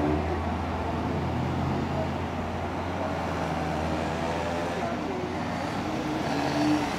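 Street traffic: car and city bus engines running as vehicles pass at low speed, a steady low rumble.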